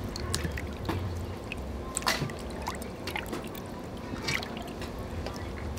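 Water dribbling and splashing in a stainless-steel basin as raw chicken drumsticks are washed by hand, with a few short, sharp splashes here and there, the loudest about two seconds in.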